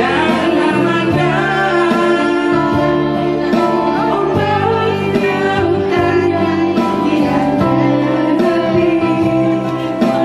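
A woman singing into a microphone over backing music, amplified through a loudspeaker.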